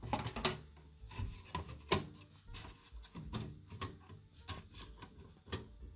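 Irregular light clicks, taps and scrapes of a computer motherboard being slid and nudged over the standoffs of a Power Mac G5's aluminium motherboard tray while it is lined up. One sharper knock about two seconds in.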